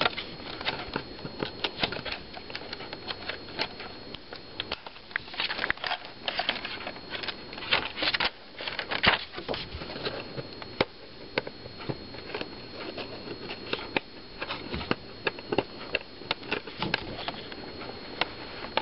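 Irregular clicks, taps and light rattles of hands working plastic and metal laptop parts while removing the keyboard of a Panasonic Toughbook CF-47. A steady high-pitched hissing noise from the camera runs under it.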